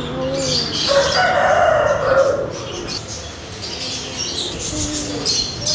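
A rooster crowing: one long call starting about a second in and lasting just over a second.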